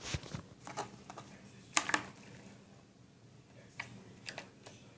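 Homemade slime being poked with the fingers, giving a string of short, irregular clicks and pops. The loudest is a pair of clicks about two seconds in.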